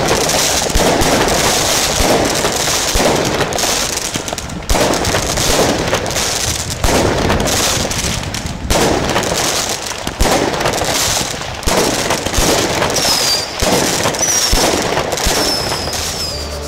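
Fireworks going off in rapid succession: dense, continuous crackling with sharp bangs and a few brief lulls, and a few short falling whistles near the end.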